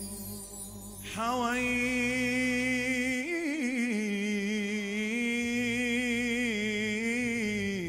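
A male voice singing an Islamic nasheed, starting a long, ornamented held note about a second in and drawing it out with wavering turns.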